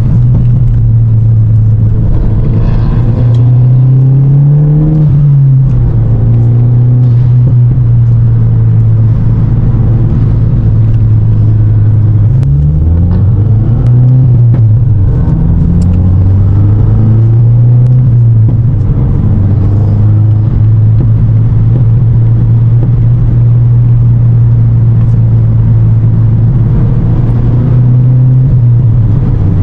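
Cabin sound of a 2023 Volkswagen MK8 GTI's turbocharged 2.0-litre four-cylinder on the move: a steady engine drone over road noise. The engine note climbs and drops back a few times, a short run in the first few seconds and several in quick succession in the middle, as the car accelerates.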